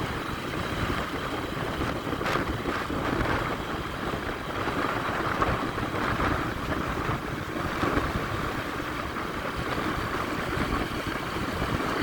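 Wind buffeting the microphone over the steady running noise of a moving vehicle's engine.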